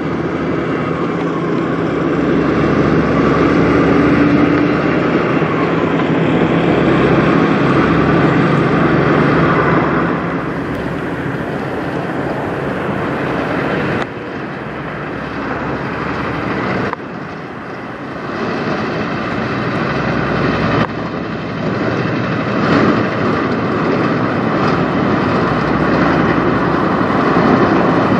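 Diesel engines of Peterbilt semi trucks running as the trucks drive past, with tyre and road noise. The sound changes abruptly several times.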